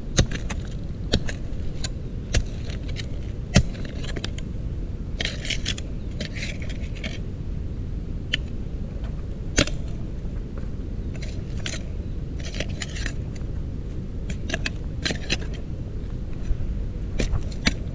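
Irregular sharp clicks and knocks with short bursts of scraping, over a steady low rumble of wind and handling on the microphone, typical of hand-digging in earth with a small metal tool.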